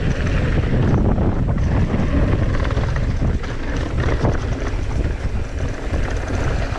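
Wind rushing over the camera microphone while a mountain bike rolls fast over loose gravel, with tyres crunching and frequent rattles and knocks from the bike over bumps.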